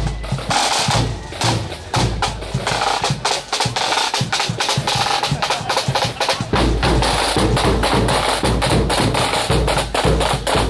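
Marching band's snare drums and bass drum playing a parade beat, the snares in quick strokes and rolls over heavy low bass drum beats.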